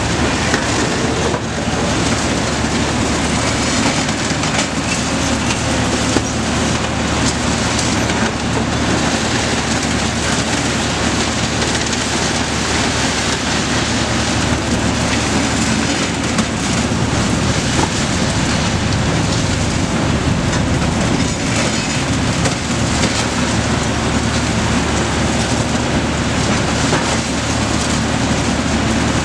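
Heavy demolition excavators with concrete shears at work: diesel engines running under load with a steady low hum, while concrete is crunched and broken rubble clatters and cracks.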